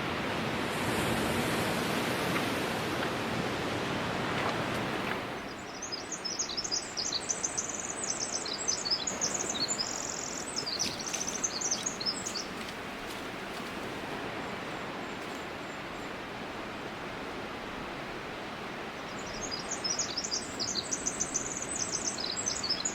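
Steady rush of water with a small songbird singing long, rapid, high twittering phrases: one run of about six seconds, and another starting near the end. The water noise is louder for the first five seconds, then drops to a lower, even hiss.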